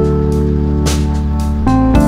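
Instrumental background music: held chords with a percussive hit about a second in.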